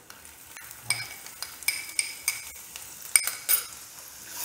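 Chopped ginger going into hot oil and ground spices in a non-stick frying pan: a low sizzle, about eight sharp ringing clinks of the small glass bowl and wooden spatula against the pan, and stirring. The sizzle grows louder near the end as the ginger fries.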